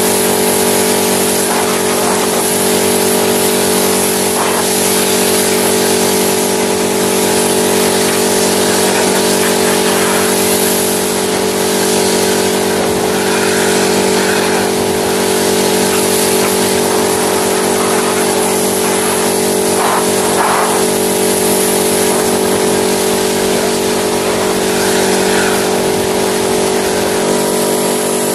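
Pressure washer running steadily: a constant motor and pump hum under the hiss of the water spray.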